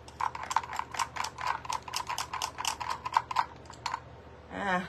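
A rapid, uneven run of small mechanical clicks, several a second, lasting nearly four seconds.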